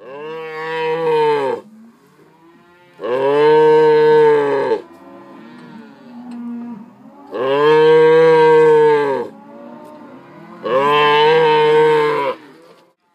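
A calf bawling four times, each call lasting about one and a half to two seconds, while it is held down for castration with a knife.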